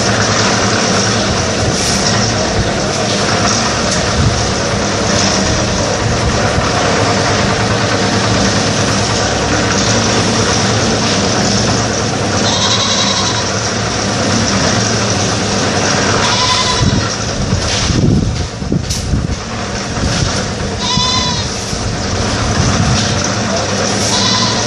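Portable drum concrete mixer's engine running steadily, loud and constant. Four short high-pitched cries cut through it, roughly every four seconds from about halfway on.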